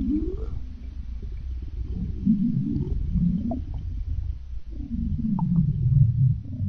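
Stomach growling sound effect: a continuous run of low, gurgling growls whose pitch slides up and down, swelling louder about two seconds in and again near the end.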